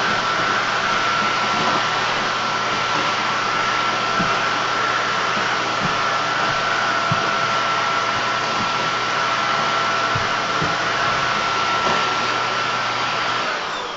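Hoover Windtunnel Air vacuum cleaner running steadily with a constant whine over its airflow noise, with a few light knocks of debris going through. Near the end it is switched off and the motor's whine falls away as it spins down.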